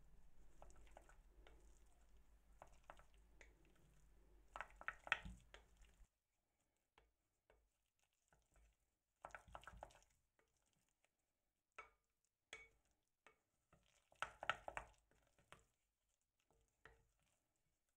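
Faint, scattered taps and scrapes of a wooden spoon against a glass bowl while mashed avocado is stirred, with a few short runs of quicker strokes.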